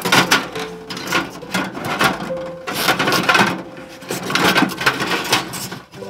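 Metal clattering and scraping as a small wood stove and a metal tool are handled with gloved hands: an uneven run of clicks and knocks.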